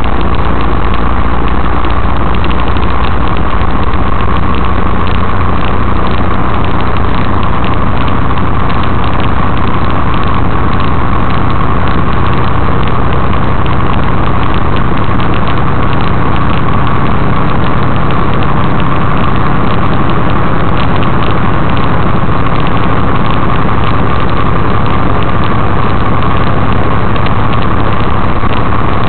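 Steady, loud engine and road noise inside a long-haul truck's cab on the highway, picked up by a dashcam microphone: a constant low drone with a hum above it.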